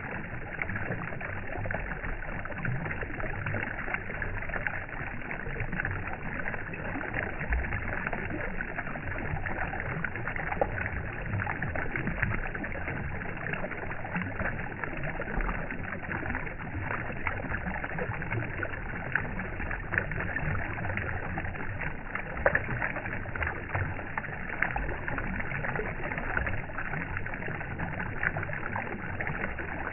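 Steady running water, a constant rush thick with fine splashing crackle, with no pauses or changes.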